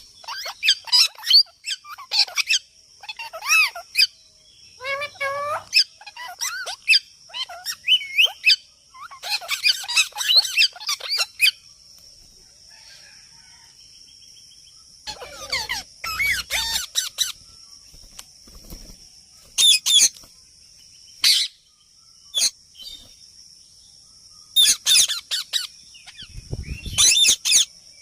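Parrot chattering and chirping in bursts of quick, pitch-bending calls, with a pause of a few seconds midway. A steady high-pitched tone runs underneath.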